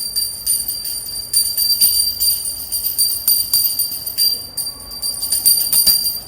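Puja hand bell rung continuously: a steady high ringing tone kept going by quick, repeated clapper strikes.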